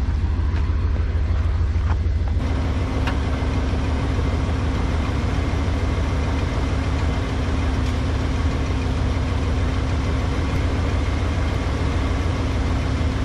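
A car engine idling steadily, a continuous low hum, from the running vehicle used to jump-start a dead battery.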